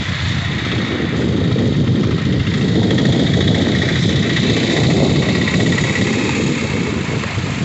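Motorcycle riding along a rain-soaked, flooded road: engine running under a heavy, steady rumble of wind on the microphone, with a hiss of tyres on the wet surface.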